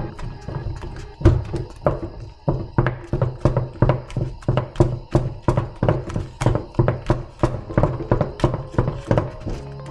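Wooden spoon beating a thick dough in a metal saucepan: a steady run of knocks against the pan, about three a second.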